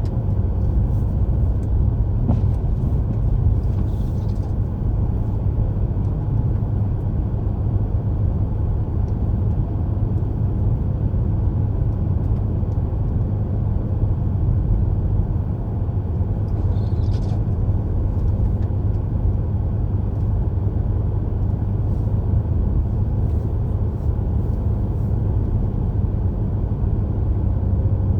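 Steady low rumble of a car driving, the road and engine noise heard from inside the cabin, with a few faint brief hisses over it.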